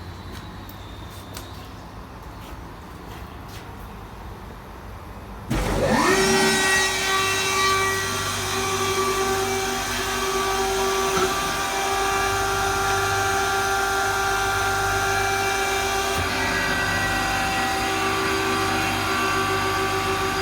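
An electric power tool motor switches on about five seconds in, spins up with a quick rising whine, then runs at a steady speed with a constant whine. Before that there is only a low hum.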